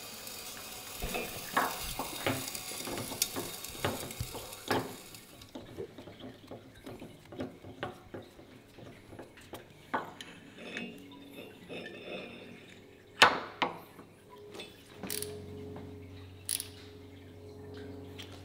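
Metal clinks and knocks as a dial indicator on its stand and hand tools are set against a crankshaft on a crankshaft grinding machine, with one sharp clank about 13 seconds in. A hiss fills the first few seconds, and a low steady machine hum comes in about 15 seconds in.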